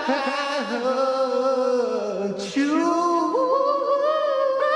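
Unaccompanied voice singing long, wavering held notes: a sneeze drawn out like a choir-class vocal exercise. A short breathy break comes about two and a half seconds in, then another held note.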